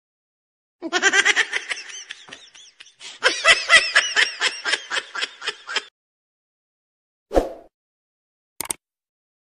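Laughter, quick repeated ha-ha pulses lasting about five seconds, then a short thump and a brief click near the end.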